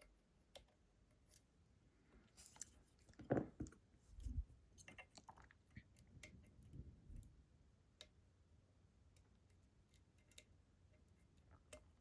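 Faint scattered metallic clicks and scrapes of lock-picking tools working the sliders of an ASSA Desmo slider lock, with a denser run of scraping and dull handling knocks a few seconds in.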